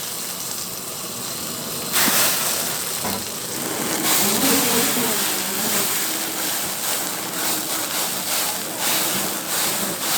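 Steady hiss of lobster cooking on a grill, jumping louder about two seconds in, with faint voices behind.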